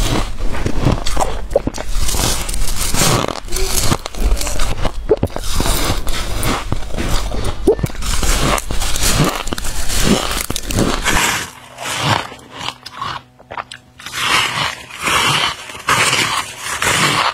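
Freezer frost being bitten and chewed: dense, continuous crunching, then from about eleven seconds in, separate crunching bites with short pauses between them.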